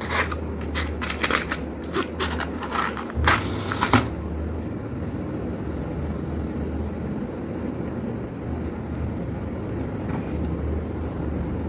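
A matchbox handled and slid open with several small clicks and scrapes, then a match struck, a short hiss as it flares about three seconds in. A steady low hum runs underneath.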